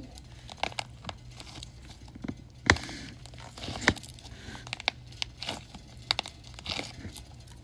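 Wax-coated squishy toy being squeezed, its hard wax shell cracking in irregular sharp snaps and crackles, with two louder cracks a little over a second apart near the middle.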